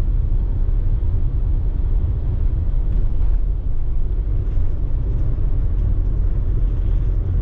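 Steady low rumble of a car driving through an expressway tunnel: tyre and engine noise with no change in pace.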